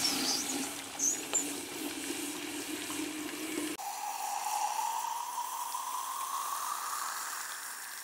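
Water poured from a plastic watering can into the filler pipe of a rocket-stove boiler. About halfway through, the sound changes abruptly and a note rises slowly as the boiler fills.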